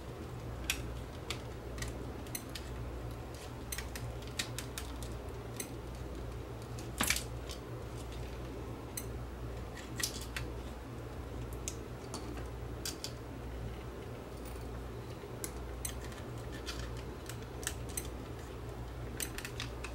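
Scattered small clicks and knocks of a plastic clock case and its circuit board being handled and worked loose, with one louder click about seven seconds in, over a steady low hum.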